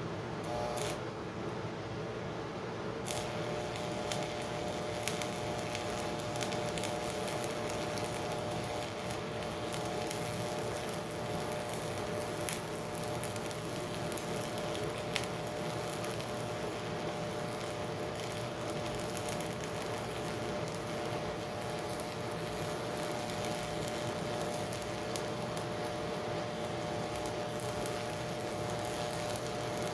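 Miller Econotwin welder's stick-welding arc crackling and spitting steadily while a bead is laid, with a steady electrical hum; the arc strikes and settles about three seconds in.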